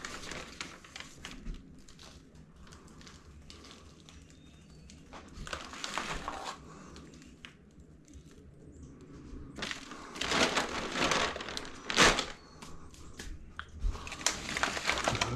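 Hands scraping and patting soil over planted bean seeds: rustling and crunching in several bursts, with a sharper, louder stroke about twelve seconds in.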